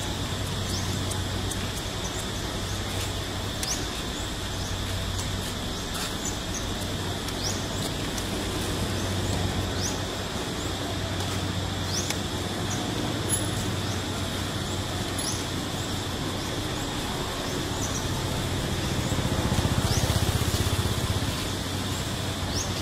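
Outdoor forest ambience: a steady high-pitched insect-like drone and a low steady hum, with short rising bird chirps every second or two.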